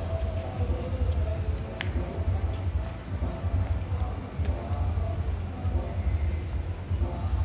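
Crickets chirping: short high chirps repeating a little under twice a second over a steady high-pitched trill, with a loud steady low rumble underneath and a single click about two seconds in.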